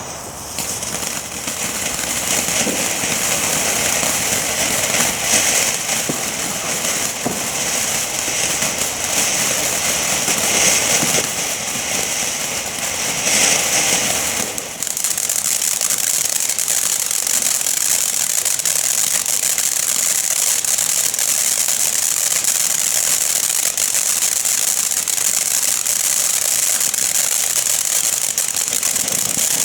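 Weco 'Laser' firework fountain burning with a continuous loud hiss of spraying sparks. It sounds rougher and fuller in the first half, then thins to an even, high hiss about halfway through.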